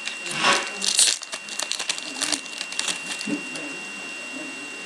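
Foil trading-card pack wrapper crinkling and tearing open as the cards are pulled out, in a few short rustling bursts, the loudest about one second in.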